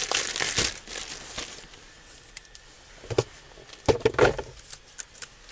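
Plastic packaging crinkling as a new metal tripod is pulled out of its bag, then a few sharp clicks and knocks of the tripod legs being handled, loudest about four seconds in.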